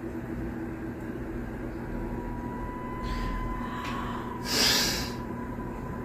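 A person blows out a short, loud puff of breath through pursed lips about four and a half seconds in, over a steady low drone.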